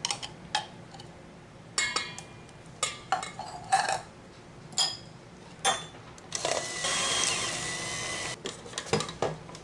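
A metal spoon scrapes and clinks against a can and a stainless-steel bowl, then about six seconds in an electric hand mixer starts and runs steadily with a whine for about two seconds, beating cream cheese and sweetened condensed milk, before a few clicks as it stops.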